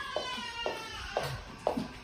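Background music with a steady beat, about two beats a second, under a slowly falling pitched tone.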